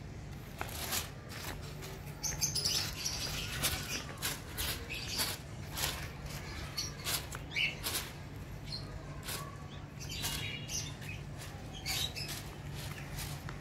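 Small paper kite fluttering and crackling in the wind as its line is tugged up by hand, with irregular sharp flaps and rattles, over a steady low hum.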